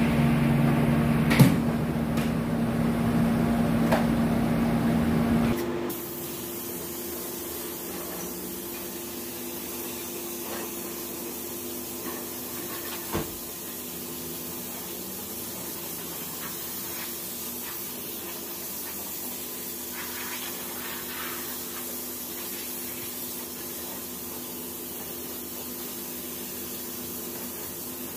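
A compressed-air spray gun with a hose-fed canister hissing steadily as it mists the engine bay. For about the first six seconds a louder steady hum with one sharp click is heard instead, cutting off abruptly; a single brief knock comes about halfway through.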